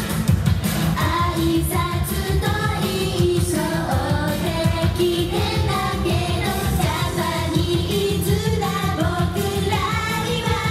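Japanese idol pop song, with female voices singing a melody over a backing track with a steady beat.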